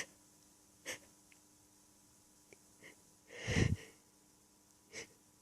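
A person's short, sharp breath, then a sneeze about three and a half seconds in, and a quick breath in near the end, while fighting an allergy tickle in the nose.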